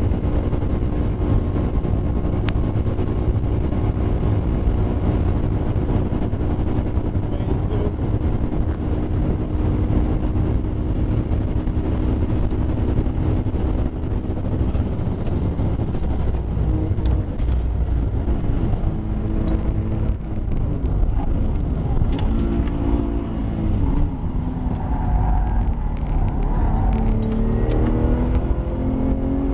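Porsche 911 GT3 RS's flat-six engine held at high revs flat out in top gear, heard inside the cabin over heavy wind and road noise. About halfway through, the car brakes hard and the engine note steps down through several downshifts. Near the end the revs climb again as it accelerates out of the corner.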